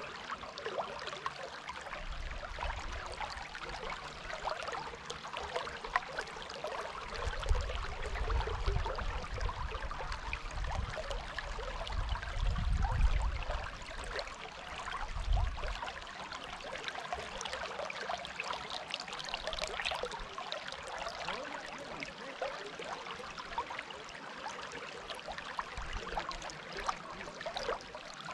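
Dunajec river water rushing, a steady splashing hiss. Low rumbling swells come and go in the first half, loudest about halfway through.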